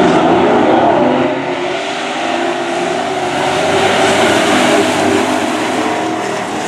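Engines of a pack of dirt-track Super Trucks running at racing speed, several engine notes overlapping and shifting in pitch as the trucks pass.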